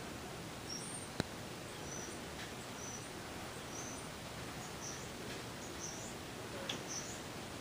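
Faint small birds chirping in short, high, scattered notes over a steady background hiss, with a single sharp click about a second in.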